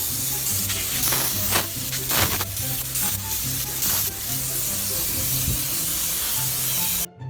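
Spray-foam gun hissing steadily as foam is sprayed, over light background music. The spray stops abruptly near the end, leaving only the music.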